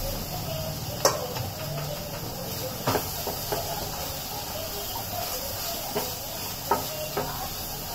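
Grated carrots, peas and soya chunks frying in a steel kadhai with a steady sizzling hiss. A wooden spatula stirs them, knocking sharply against the pan about five times.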